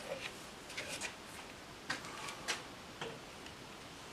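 Hands handling a home-made pedal-car wheel on a workbench: a few faint, scattered clicks and taps.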